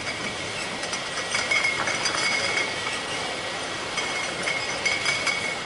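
Glass vodka bottles clinking against each other on a bottling-line conveyor, over the steady running of the line's machinery with a thin high whine.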